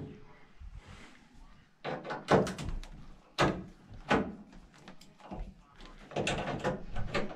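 A hand tool clicking and knocking against a washing machine's metal cabinet frame: a run of sharp, irregular taps and clatters from about two seconds in.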